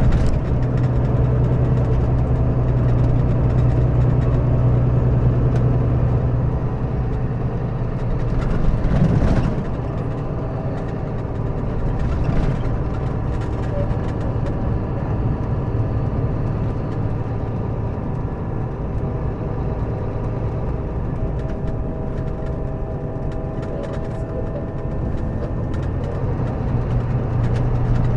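Scania K400B bus engine, a 13-litre straight-six diesel, running at a steady idle. A brief rush of noise comes about nine seconds in, after which the engine sounds a little quieter.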